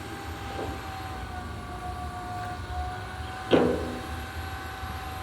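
Dump truck's engine running steadily, a low rumble with a steady whine over it. A short shout cuts in about three and a half seconds in.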